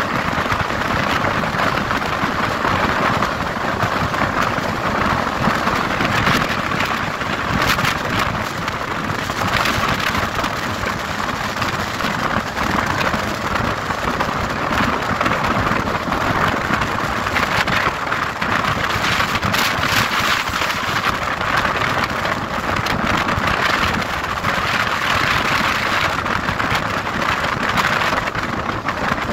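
Passenger express train running at high speed, heard from beside a coach: a steady rush of wheels on the rails mixed with wind, swelling briefly a few times.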